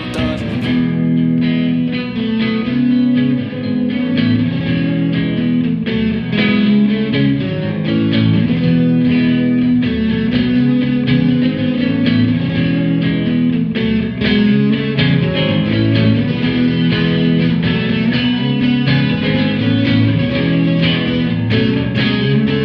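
Rock band playing an instrumental passage: electric guitars over drums.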